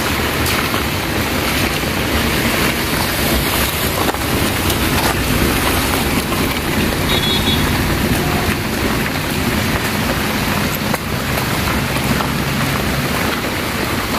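Steady noisy rush of rain and wind on the microphone, with a car's engine and tyres on the wet road as it drives slowly past in the middle.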